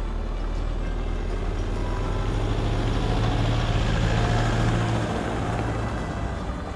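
A 4WD towing an off-road camper trailer drives past on a gravel track. Its engine and tyres grow louder to a peak about four seconds in, then fade as the trailer rolls by.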